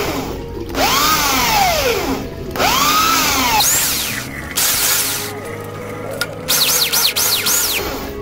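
Corded electric drill boring into a metal bicycle rim, pulsed on the trigger: the motor whines up and winds down in a few longer bursts, then in a quick run of about five short pulses near the end.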